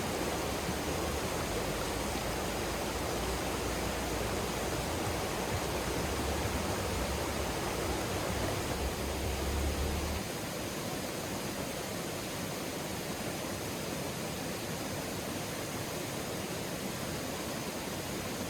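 Steady outdoor rushing noise with a low rumble underneath that stops abruptly about ten seconds in.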